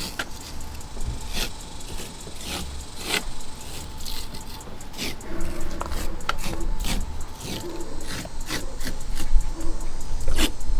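Irregular rubbing and scraping handling noises with scattered clicks, as the wicker bill spoiler is moved and positioned against the trunk lid.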